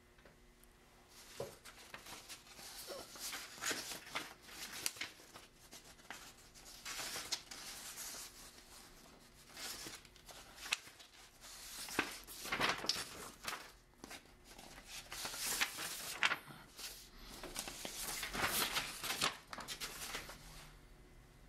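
Fingers rubbing, pressing and scraping modelling clay onto a wire sculpture armature: irregular strokes of scraping and rustling, some louder than others, with brief pauses between them.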